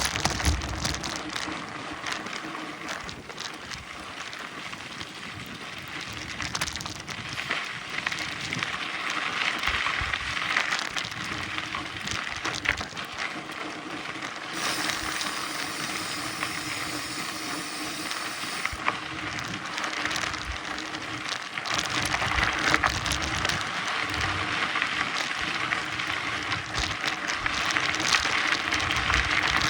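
Mountain bike riding along a dirt trail: steady tyre noise on the ground with frequent rattles and knocks from the bike.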